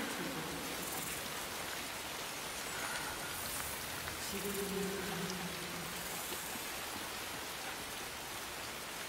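Steady rain falling and pattering on surfaces, with a brief low droning tone about halfway through.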